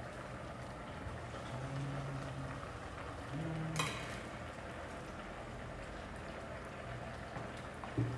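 Steady faint kitchen hiss as cooked side dishes are moved with chopsticks into glass storage containers, with one sharp clink of utensil on glass about four seconds in and a small knock near the end.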